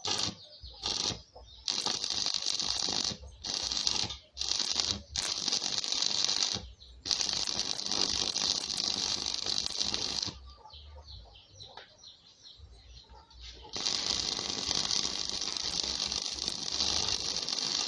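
Homemade corn grinder driven by a three-phase induction motor, running with a loud, even hissing noise. The noise comes in stretches that start and stop abruptly, with a quieter spell about two thirds of the way through.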